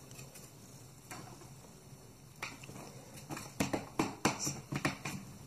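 Plastic clicks and knocks as an Acer Nitro 5 laptop's bottom cover is handled and its many latches pressed shut: quiet at first, then about a second before the middle a run of sharp clicks.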